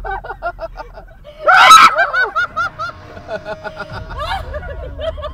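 People laughing in quick, repeated bursts, with one sudden loud outburst about a second and a half in.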